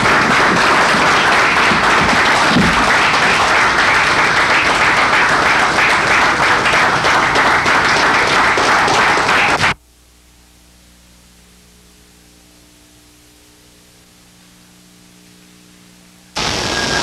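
A group of people applauding, a dense steady clatter of many hands that cuts off suddenly about ten seconds in. A quiet steady hum with a few held tones follows, then loud sound returns abruptly near the end.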